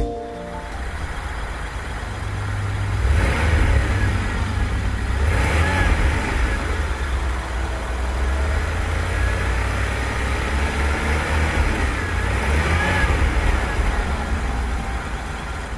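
Rolls-Royce Corniche's 6.75-litre V8 running steadily with the bonnet open, revved up and let back down three times: about three seconds in, around six seconds, and a couple of seconds before the end.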